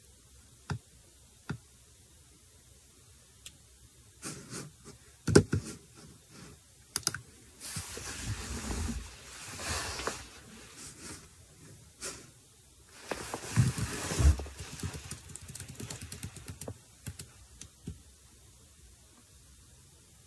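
Fingers tapping and typing on a phone close to the microphone, with rubbing handling noise: a few separate clicks at first, then from about four seconds in a busier, irregular stretch of taps and rubbing.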